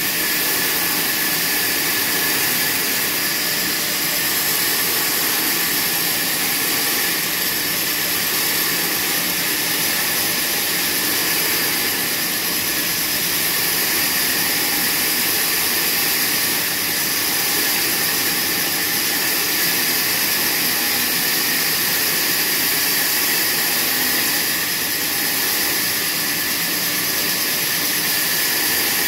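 Sawmill band saw cutting steadily through a large padouk log: a loud, even, mostly high-pitched hiss of the blade tearing through the wood, with no break.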